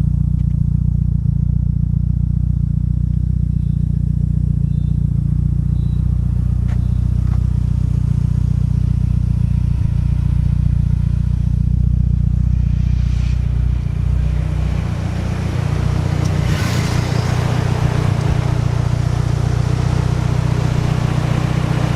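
Turbocharged 4G63 four-cylinder of a Mitsubishi Lancer Evolution 6.5 Tommi Makinen edition, heard from inside the cabin, droning steadily while cruising in third gear. Around 15 s in the level dips briefly, then a broader rushing noise builds over the engine drone.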